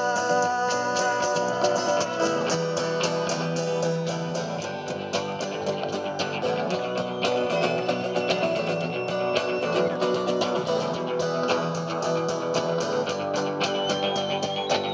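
Live rock band playing an instrumental passage led by guitar, over a steady beat.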